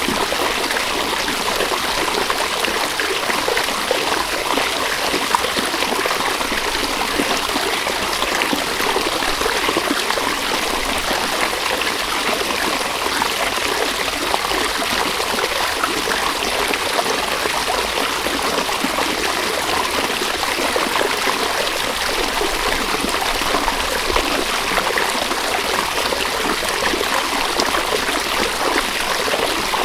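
River water flowing and trickling over stones in a steady, continuous babble.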